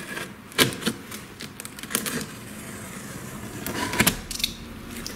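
Utility knife slicing through the packing tape and cardboard of a shipping box: short scraping rasps, a few in the first second, one around two seconds and another near four seconds.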